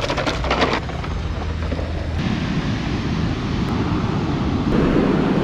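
A clattering rattle in the first second, then about two seconds in the sound changes to a steady rush of wind on the microphone, with surf behind it.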